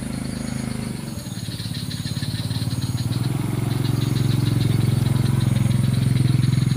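A small engine running with a steady low hum that grows louder over the first few seconds, then holds steady.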